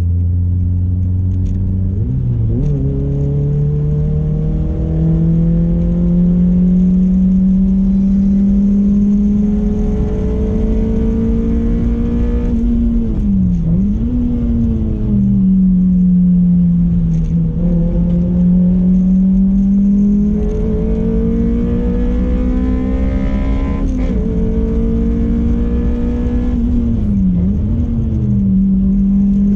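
Toyota MR2's 2ZZ-GE 1.8-litre four-cylinder engine, heard from inside the car, pulling hard on track. Its note climbs steadily in pitch over several seconds at a time, with a few brief dips.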